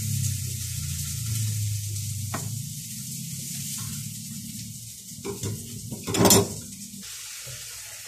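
Kitchen knife sawing through a whole fish's skin and flesh on a plastic cutting board, a steady scraping noise, with a few knocks and one louder clatter about six seconds in before the cutting stops.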